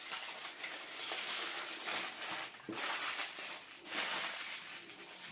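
Aluminium foil crinkling and rustling in irregular bursts as it is folded and pressed around a rolled meat roll.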